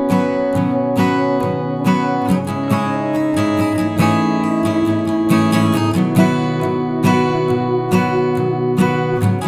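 Background music: strummed acoustic guitar chords at a steady, unhurried pace.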